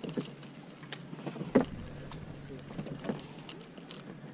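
Low steady hum of a boat's idling motor, with scattered small clicks and knocks from handling fishing line and tackle, the loudest about a second and a half in.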